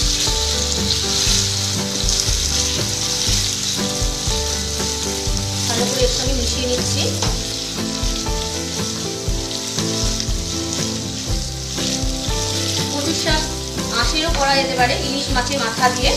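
Taro leaves and chickpeas sizzling steadily in hot mustard oil while a spatula stirs them round the pan, the leaves cooking down as their water fries off. Steady held background-music tones run underneath.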